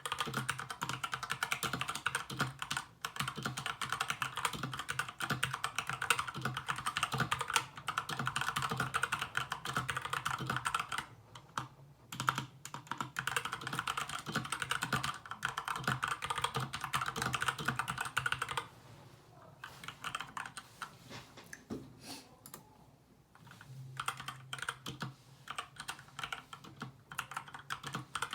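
Typing on an SK61 mechanical keyboard with lubed Gateron Brown tactile switches and pudding keycaps: fast, continuous keystrokes with a brief pause a little before the middle and a slower, sparser, quieter stretch about two-thirds of the way through before fast typing resumes.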